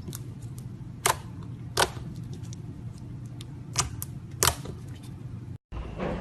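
Clear slime being squeezed and stretched by hand, giving sharp wet pops and clicks: four loud ones among many fainter ones, over a steady low hum.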